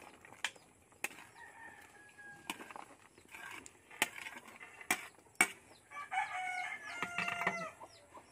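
A chicken calls once, a long pitched call of about a second and a half starting about six seconds in, the loudest sound here. Before it, sharp clicks and knocks of the ladle and vegetables against the plate and the pot.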